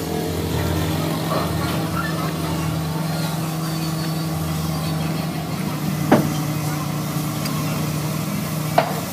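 An engine or motor running steadily with a low hum, with two sharp knocks, one about six seconds in and one near the end.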